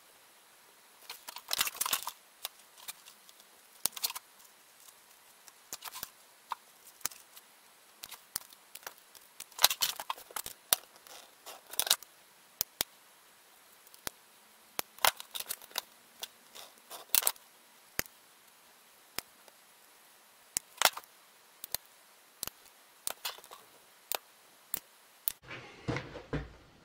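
Scissors cutting cork gasket sheet: irregular sharp snips with short crunchy cuts through the cork. Near the end comes a rustle of the cut gaskets being handled.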